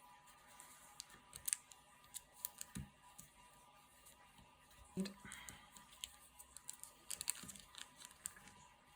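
Light, irregular clicks and taps of card and paper craft materials being handled on a work surface, with duller knocks about three and five seconds in.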